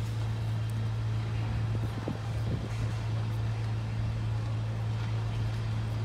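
Ship's engine running with a steady low drone over a faint hiss of background noise.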